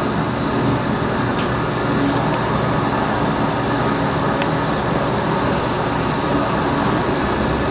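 Jacuzzi bathtub with its jets on, the pump running and churning the bathwater with a steady rushing noise and a low hum.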